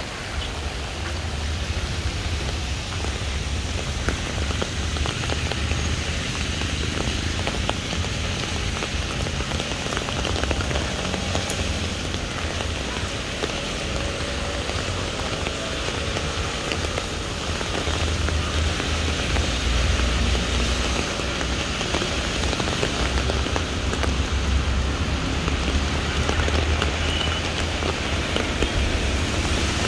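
Steady rain falling on wet paving and leaves, with many small drop ticks over an even hiss and a low rumble underneath.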